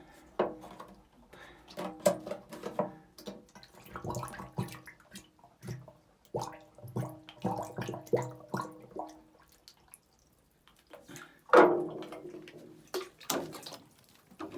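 Water bottle held under water in a spring-fed mine, glugging and gurgling in pitched bursts as air bubbles out while it fills. There is a run of about three glugs a second in the middle and a louder gurgle about three-quarters of the way through.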